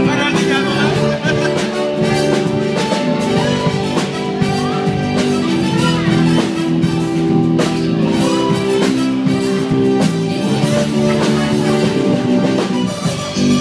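Live band playing upbeat dance music: sustained held notes over a steady drum-kit beat.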